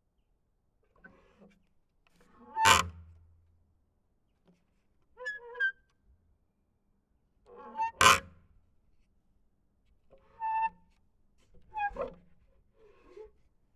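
Wooden planks creaking and squeaking in a series of short, separate creaks, one every one to three seconds. Two of them, about a fifth of the way in and just past the middle, are the loudest and carry a low thud.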